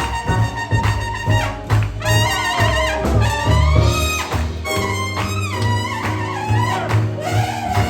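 Jazz with brass horns playing over a steady bass beat; the horn lines bend and fall in pitch in the middle.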